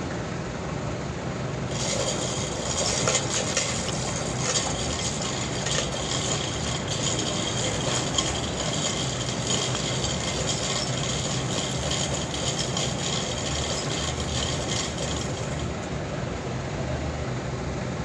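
Chain hoist running with a steady high whine and rattling chain. It starts about two seconds in and stops suddenly about two seconds before the end, over a steady hum of sawmill machinery.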